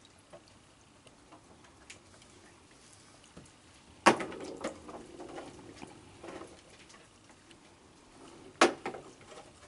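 Two sharp clacks about four and a half seconds apart, the first the loudest: hand-tossed cookies landing on a wooden deck. Faint small ticks come between them.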